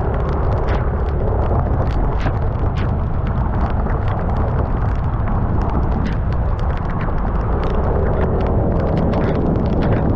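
Scooter ride in heavy rain: a loud, steady rumble of wind buffeting the microphone, with frequent sharp ticks of raindrops striking it.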